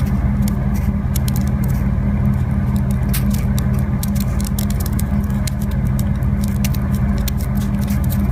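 Water in nucleate boiling on a heated surface: a dense, irregular crackle of sharp ticks from forming and collapsing vapour bubbles over a steady low hum.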